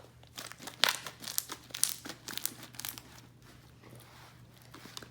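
Sticky glue slime being kneaded and pulled apart by hand in a bowl, giving a run of wet crackles and snaps. The crackling is busiest for the first three seconds, then turns sparse and faint.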